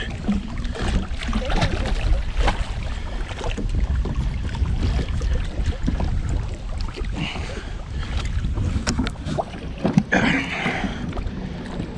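Wind buffeting the microphone over water slapping at the hull, with short sharp splashes as a large northern pike thrashes beside the boat while it is landed by hand.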